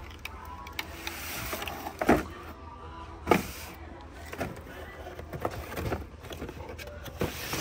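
Scattered knocks, clicks and rustles of boxed toy packaging, plastic and cardboard, being handled on a store shelf, over a steady low hum.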